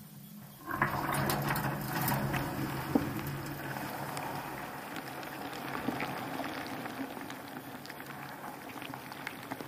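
Water sloshing and bubbling as crushed malt grain is poured into the mash water of a brew-in-a-bag kettle. The sound starts just under a second in, is loudest at first and slowly dies away.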